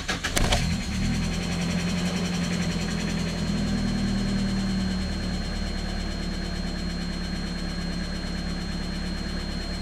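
Mazda B2600 pickup's 2.6-litre four-cylinder engine catching about half a second in after a brief crank, then running at a steady fast idle that eases down slightly. It started cleanly after the key was left on for about 20–30 seconds, the workaround for a hard-starting fault blamed on an ECU damaged by leaking capacitors.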